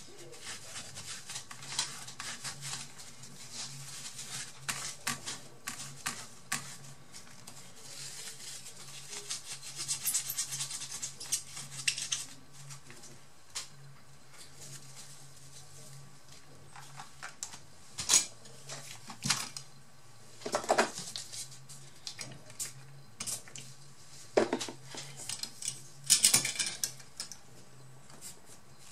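A tissue rubbing and scraping over a laptop motherboard's processor and graphics chips, wiping off old thermal paste, with scattered clicks and, in the second half, a few louder knocks of parts being handled.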